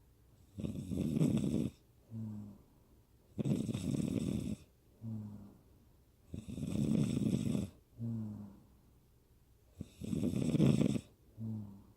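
A woman snoring in a steady rhythm, about one breath every three seconds. Each loud, rattling snore is followed by a shorter, softer humming breath, four cycles in all.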